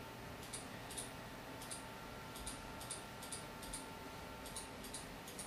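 Faint computer mouse clicks, about fifteen at an irregular pace, some in quick pairs, over a faint steady tone.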